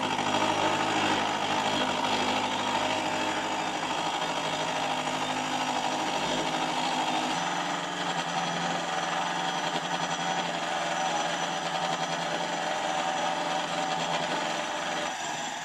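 Milling machine running with a face-milling cutter skimming the top face of a cast cylinder block, a steady cutting noise with the machine's tone shifting a little about halfway through.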